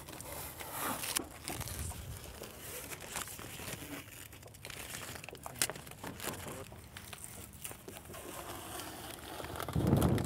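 Blue painter's tape being peeled off a boat's fibreglass deck and balled up in the hand: a run of irregular crackles and rips.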